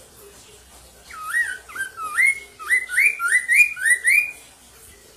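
A poksay mandarin (chestnut-capped laughingthrush) singing a quick run of about seven loud whistled notes, each swooping upward in pitch, starting about a second in.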